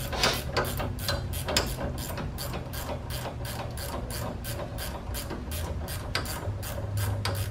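Hand ratchet clicking in quick, even strokes as it tightens the 17 mm self-locking nut on the top of a sway bar end link.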